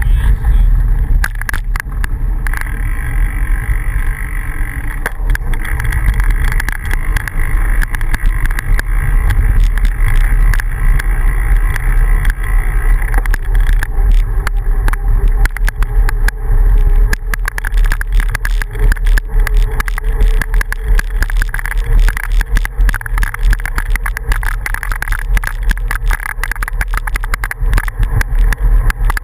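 Wind buffeting the microphone of a camera riding on a moving bicycle, over the rumble and crunch of bicycle tyres rolling on a gravel road, with frequent small clicks and rattles from the bumps.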